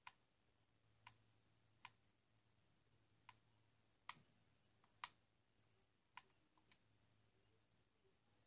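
Faint, sharp clicks of remote-control buttons pressed one at a time while scrubbing through a video player, about eight clicks at uneven intervals.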